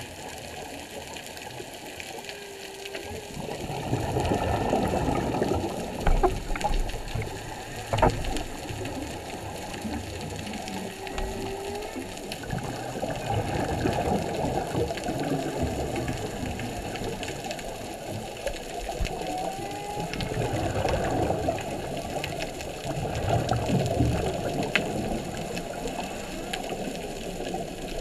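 Underwater sound: surging, rushing water noise with faint humpback whale calls, a few short moans, one rising in pitch about twenty seconds in.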